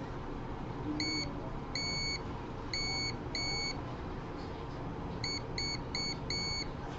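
Multimeter continuity buzzer giving about eight short beeps of one steady pitch at uneven intervals, each sounding as the probes touch connected breadboard contact points: the beep signals continuity, that the contacts are connected.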